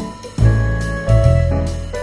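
Background music led by piano or electric keyboard over a steady bass line.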